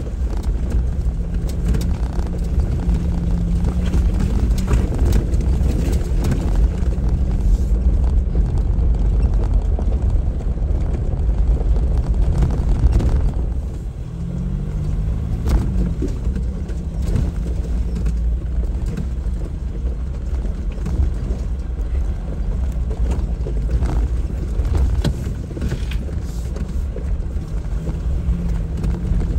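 Jeep driving a rough off-road trail: the engine runs at low revs with its note rising and falling over a heavy low rumble, with scattered knocks and rattles. About halfway through the sound drops for a moment, then the engine note swoops up and back down.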